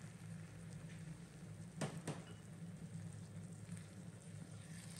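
Thin soy-and-vinegar sauce, just loosened with a cup of water, sizzling softly in a nonstick frying pan of onions and capsicum as it is stirred with a wooden spatula. There are two light knocks of the spatula a little under two seconds in, over a low steady hum.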